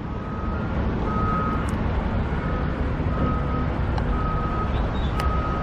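Backup alarm of a construction vehicle beeping about once a second, each beep about half a second long, over the steady rumble of heavy diesel machinery.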